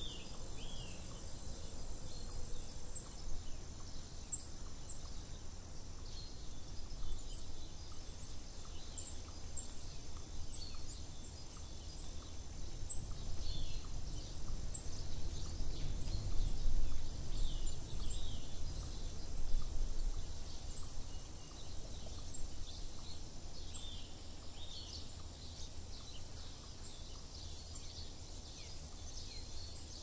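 Wild birds singing: many short, high chirps and calls from several birds throughout, over a steady high-pitched background hum. A low rumble swells through the middle and fades again.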